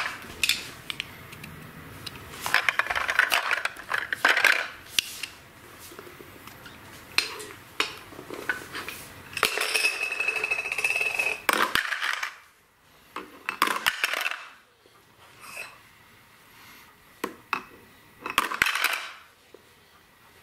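Plastic letter blocks clattering and knocking against the plastic wagon and engine of a VTech Sit-to-Stand Ultimate Alphabet Train as a toddler handles them. They come in scattered bursts of clicks and rattles, with a brief high steady tone about halfway through.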